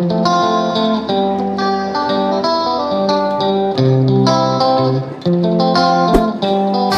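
Background music: a plucked-string tune of quick separate notes over lower notes.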